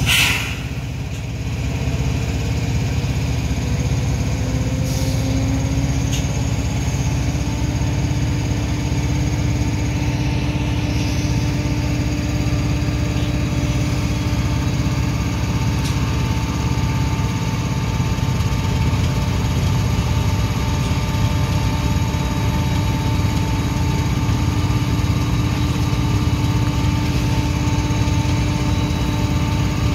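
CSX diesel locomotive engine running steadily close by, beside a loaded coal train, with a low hum and a steady drone throughout. A brief sharp noise comes right at the start.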